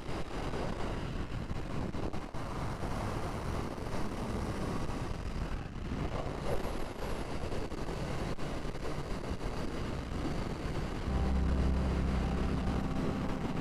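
Triumph Street Triple inline-three motorcycle engine running amid a steady rush of noise. About two seconds before the end, a deeper steady hum comes in.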